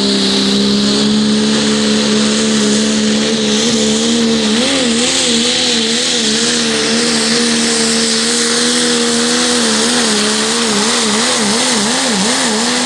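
Turbocharged diesel engine of a Pro Stock Diesel pulling truck at full throttle under the load of a pulling sled, holding a steady high pitch over the hiss of the turbo and spinning tyres. The engine note wavers quickly up and down for a couple of seconds, twice: once around the middle and again near the end.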